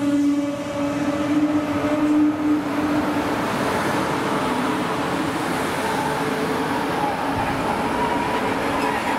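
A DB regional train of double-deck coaches rolling slowly past at a platform, then its class 112 electric locomotive passing close with a steady rushing noise. A pitched hum fades after about three seconds, and a faint whine comes in near the end as the train draws to a stop.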